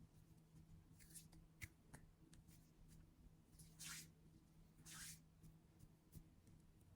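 Near silence: a faint steady low hum with a few soft, brief rustling swishes and light clicks.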